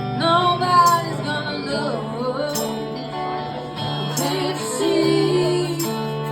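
Band playing an instrumental passage of a country-rock song, with guitar; a lead line bends in pitch in the first second or so.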